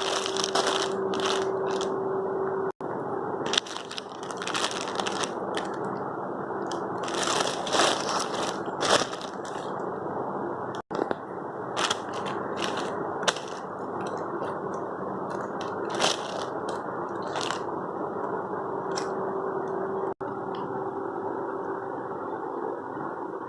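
Plastic parcel packaging crinkling and crackling as it is handled and opened, in many short sharp crackles over a steady hiss with a faint hum. The sound cuts out briefly three times.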